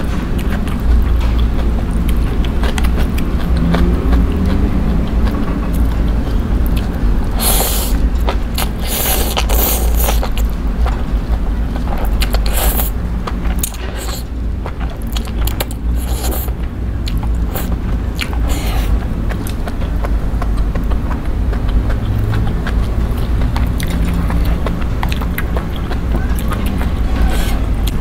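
Close-miked eating of instant noodles and enoki mushrooms: steady wet chewing, with several bursts of noodle slurping in the middle.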